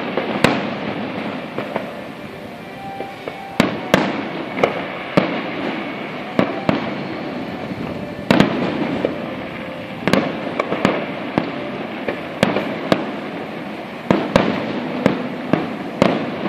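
Aerial firework shells bursting in a rapid barrage: sharp bangs about once or twice a second, with a rolling rumble and echo filling the gaps between them.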